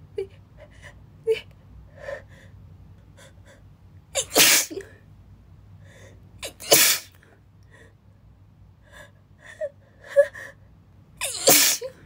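A woman sneezing three times, about four seconds in, just under seven seconds in and near the end, with short catching breaths between the sneezes.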